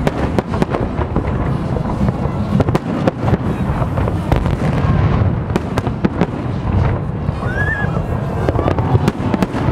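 Fireworks display: aerial shells bursting in quick succession, a dense run of sharp bangs and crackles over a continuous low rumble.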